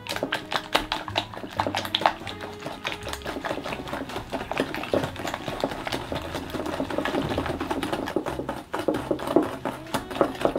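Small wire whisk beating an egg and vanilla into creamed butter and sugar in a metal bowl by hand: rapid, steady clicking and scraping of the wires against the bowl.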